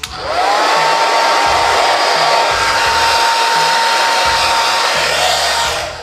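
Handheld hair dryer switched on with a click, its motor whine rising quickly to a steady high tone over a loud rush of blown air. It runs steadily, then is switched off near the end and winds down.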